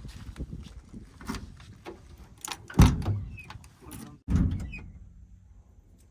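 A run of sharp clanks and knocks over a low rumble, with two heavy thuds about three and four seconds in; after the second thud the rumble drops away.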